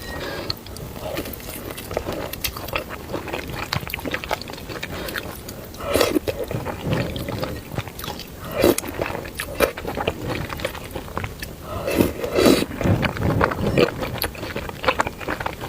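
A person eating spicy noodles: wet chewing and biting with many small mouth clicks, and a few louder bursts about six, nine and twelve seconds in.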